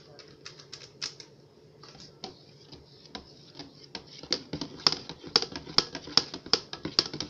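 A spoon stirring Kool-Aid in a plastic pitcher, clicking against the sides. The clicks are light and sparse at first, then louder and regular at about four a second from about four seconds in.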